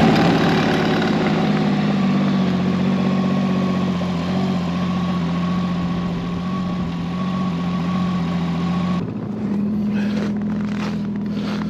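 Snowmobile engine running steadily at idle just after starting. About nine seconds in the sound changes abruptly, losing its hiss, and a steadier engine tone continues with a few sharp knocks.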